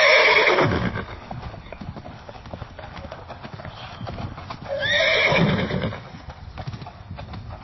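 A horse whinnies twice: once at the start and again about five seconds in, each call falling in pitch and lasting about a second. Hooves knock repeatedly between the calls.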